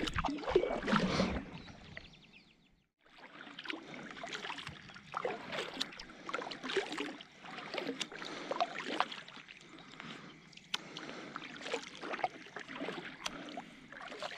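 Kayak paddle strokes in calm lake water: the blade dipping and pulling through with splashes and drips, about one stroke every second and a half. The sound cuts out completely for a moment about two and a half seconds in.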